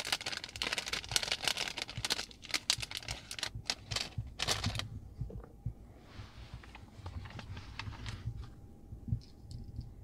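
A small clear plastic parts bag crinkling and crackling as a self-tapping screw is taken out of it, dying down after about five seconds to faint handling noises.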